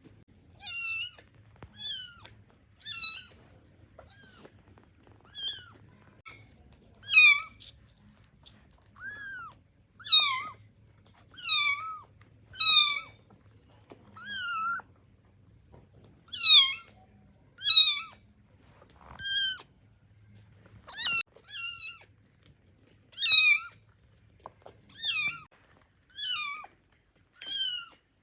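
Newborn kittens mewing: about twenty short, high-pitched cries, each falling in pitch, repeated roughly once a second and varying in loudness. These are hungry kittens calling for their milk.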